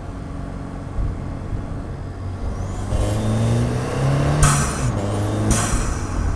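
2015 Ford Fiesta ST's turbocharged 1.6-litre EcoBoost four-cylinder, heard through its cold air intake, running steadily and then accelerating. A high turbo whistle rises with the revs, broken twice by a short whoosh as the engine pitch drops, like a boost release at a shift.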